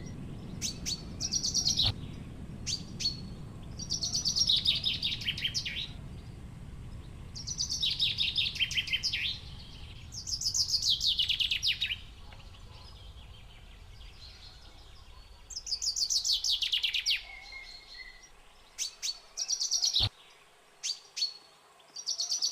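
A small bird singing a repeated song: about five quick descending trills a few seconds apart, with short chirps between them. A low steady hum underneath stops near the end, and a single click follows.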